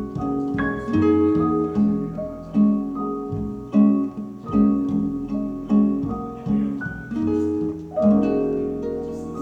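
Instrumental music of plucked-string notes, each struck and ringing away, about one note every second, growing softer near the end. It is played back through an Altec 612C speaker cabinet with a 416-8Z woofer and 311-60 horn.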